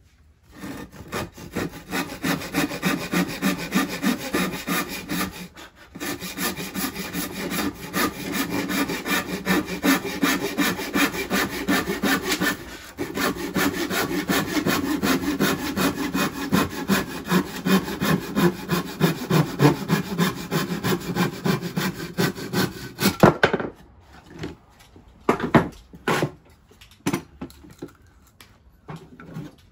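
Handsaw cutting through a 2x4 by hand in steady back-and-forth strokes, with two short pauses; it is cutting a slight taper on blocking so the piece wedges between rafters. The sawing stops about 23 seconds in, followed by a few separate knocks as the wood is handled.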